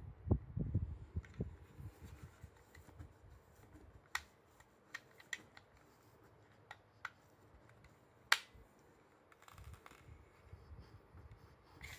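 Soft, low handling bumps as a handheld phone camera is moved, then a few separate sharp clicks and taps, the loudest about eight seconds in.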